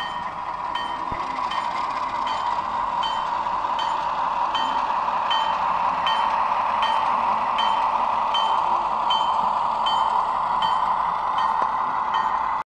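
Model diesel locomotive's sound-decoder bell ringing steadily, about one strike every three-quarters of a second, over a steady running hum from the engine sound and wheels on the rails.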